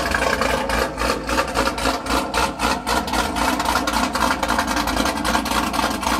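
Holden-badged V8 sedan's engine idling, heard close to its rear exhaust, with a steady deep rumble and a rapid, uneven pulse.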